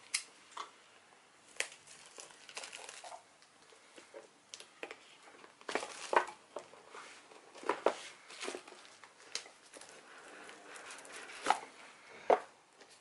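Plastic shrink-wrap being peeled, torn and crinkled off a smartphone's cardboard box, in irregular crackles and clicks, with rustles as the box is handled and opened.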